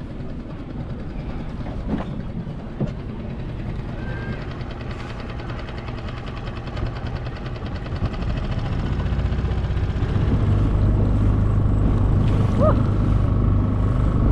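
A motorboat engine running steadily, growing clearly louder about eight to ten seconds in.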